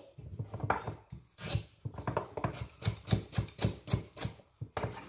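Kitchen knife chopping a raw carrot into small pieces on a wooden cutting board: a run of crisp, even cuts that speeds up to about four or five a second, then stops shortly before the end.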